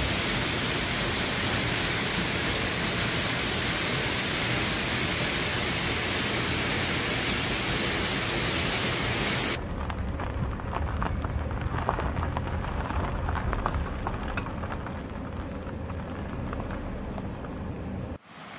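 Waterfall pouring into its plunge pool: a steady, dense rushing noise that cuts off abruptly a little past halfway. After it comes a quieter, unsteady low rumble with wind-like noise.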